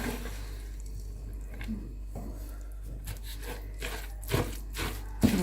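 Faint, scattered clicks and rubbing of a utensil working food in a bowl, over a steady low hum.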